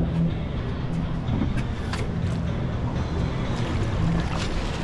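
Steady low rumble of a boat idling on open water, with wind buffeting the microphone and a few faint clicks.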